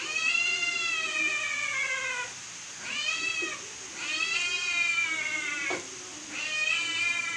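Domestic cat meowing four times in long, drawn-out calls, the first about two seconds long, the pitch sagging toward the end of each: a cat begging for food.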